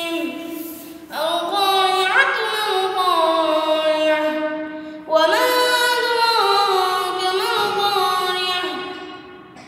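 A boy singing unaccompanied in long, held, gliding notes, starting a new phrase about a second in and again about five seconds in, each phrase fading at its end.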